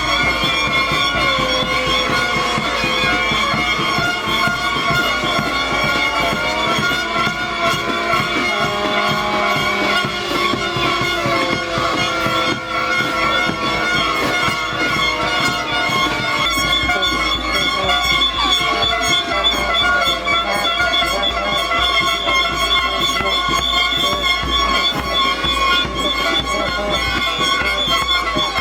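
Many air horns sounding together at different pitches, a dense, held chord that goes on without a break, with lower sliding, wavering tones weaving underneath.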